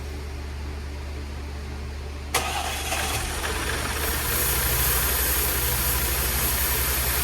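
Supercharged 3.0-litre V6 in an Audi Q5 firing on its first start after a timing chain and guide replacement. A low steady hum gives way about two seconds in to the engine suddenly catching. It grows louder about a second later and settles into a steady, smooth-running idle.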